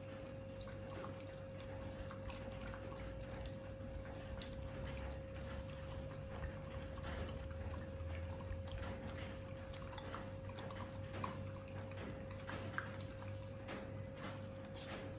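Two dogs eating from plastic trays: wet chewing and lapping with many small clicks and ticks.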